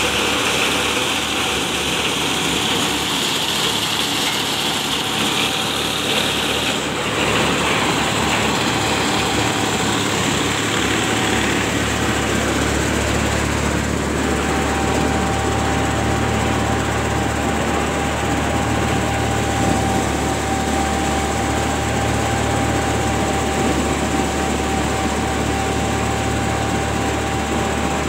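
Massey Ferguson 9500 Smart 58 hp diesel tractor engine running steadily, with a steady whine over it; a deeper drone comes in partway through.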